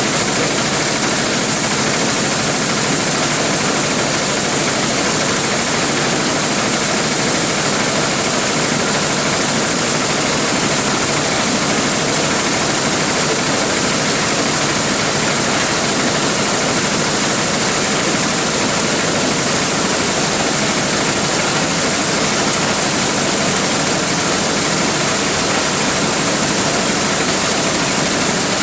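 Large engine-driven corn sheller running steadily under load: a loud, unbroken mechanical din of the engine and belt-driven threshing drum, with a constant high hiss over it.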